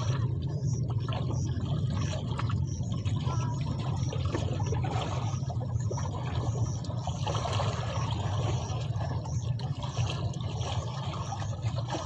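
Water lapping and trickling over a steady low hum.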